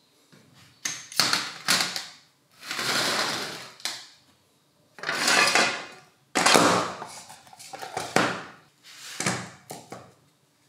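Disassembled rotary hammer parts (the gear housing and the geared spindle assembly) being set down and shifted around in a metal tray: about six separate clattering, scraping handling noises, each lasting up to about a second.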